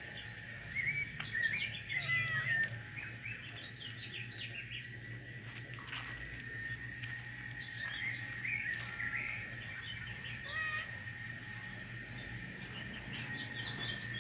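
Small birds chirping, many short quick calls scattered throughout, busiest about a second or two in and again around eight to nine seconds in, over a faint steady high tone.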